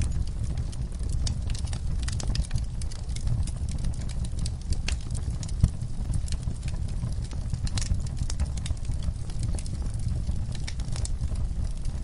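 Wood fire crackling in a fireplace: irregular sharp pops and snaps over a steady low rumble of burning logs.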